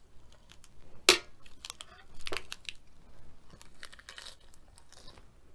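Crisp lettuce leaf crinkling and snapping as it is folded around a forkful of beef and pineapple, with a few sharp clicks, the loudest about a second in; near the end, a crunchy bite into the lettuce wrap.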